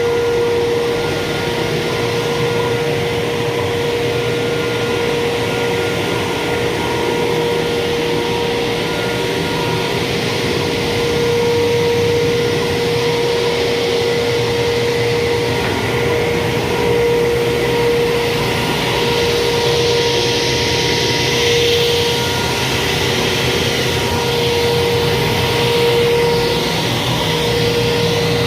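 A machine running steadily, with a constant whine over a broad rushing noise.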